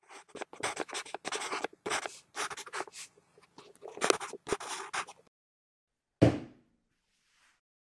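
Felt-tip marker drawing on a paper map in a quick series of scratchy strokes for about five seconds, then a single thump of a rubber stamp pressed down onto the map about six seconds in.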